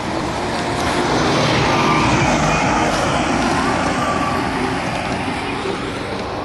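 A motor vehicle passing on the road, its tyre and engine noise swelling to a peak about two seconds in and then slowly fading.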